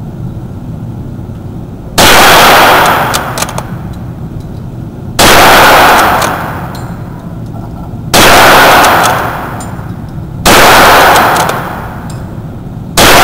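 Wards Western Field rifle firing five single shots, spaced about two and a half to three seconds apart. Each shot is loud and echoes with a long tail off the concrete walls of an indoor range.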